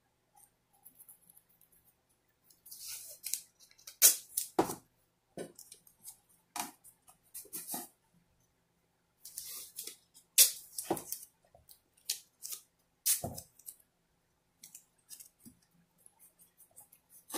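Blue painter's tape being pulled and torn into short strips by hand and pressed onto a clock's glass face: a run of short ripping sounds, irregularly spaced, with pauses between.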